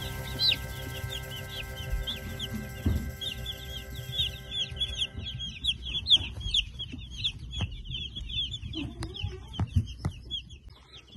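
A brood of newly arrived chicks peeping nonstop, many short high falling peeps overlapping, with a few soft knocks.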